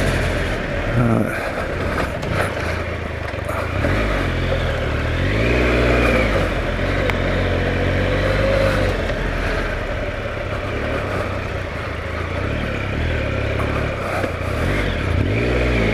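Triumph Explorer adventure motorcycle's three-cylinder engine running as it is ridden along a dirt trail. The revs rise and fall with the throttle, most plainly about five seconds in and again near the end.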